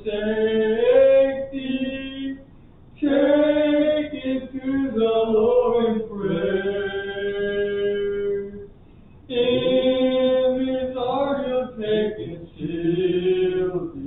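Hymn singing: slow sung phrases with long held notes, broken by short pauses for breath about two and a half seconds in and again near nine seconds.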